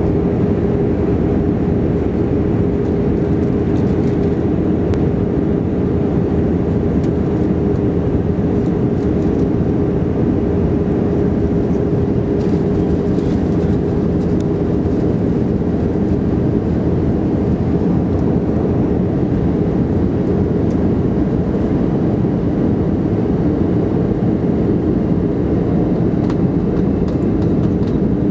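Airbus A320 cabin noise in flight: steady engine and airflow noise heard from a window seat beside the wing-mounted engine, with a constant hum running through it, as the airliner descends on its approach.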